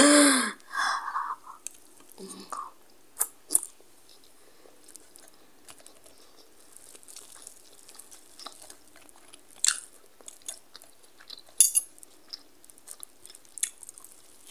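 A short laugh at the start, then a person chewing a mouthful of rice and bitter gourd, with scattered light clicks of a fork and spoon on a plate.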